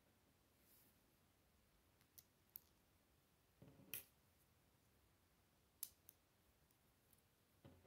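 Faint, sparse clicks of small Lego plastic pieces being handled and turned as a mini Lego transforming truck is worked, with a slightly louder scrape and knock about four seconds in as the toy rolls on the wooden table.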